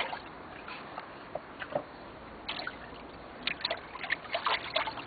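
Water in a small paddling pool splashing and dripping in short, scattered splashes as small griffon dogs wade in it.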